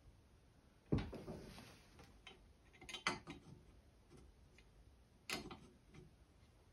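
Faint, scattered clicks and knocks of small parts being handled and tried against the frame while assembling a laser engraver: one knock about a second in, a quick cluster of taps around three seconds, and another knock a little past five seconds.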